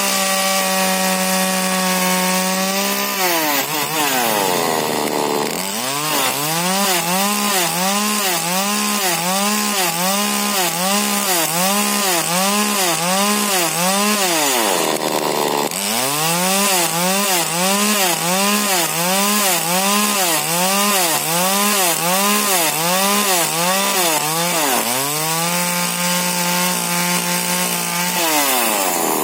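Husqvarna 40cc two-stroke chainsaw with a modified exhaust, cutting wood at full throttle. The engine pitch rises and dips about once a second as the chain bites, with two brief drops in revs between cuts; it runs high and steady at the start and near the end.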